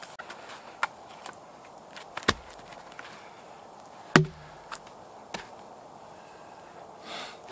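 Small axe chopping into a log: two heavy strikes about two seconds apart, the second the loudest with a short dull ring, among lighter knocks and taps of the blade on the wood.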